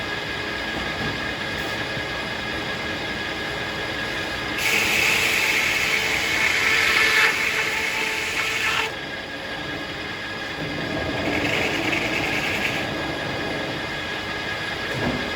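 Circular sawmill running steadily, its blade cutting through a hackberry log for about four seconds with a louder, hissing whine, then easing back to the running drone before a second, shorter and quieter cut.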